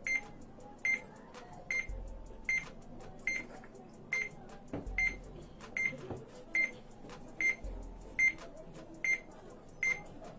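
Electronic countdown timer beeping steadily: a short, high beep repeating a little faster than once a second.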